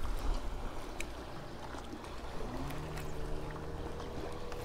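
Low wind-and-water rumble with a few faint clicks. About halfway through, a boat motor's steady hum comes in, rising briefly in pitch and then holding.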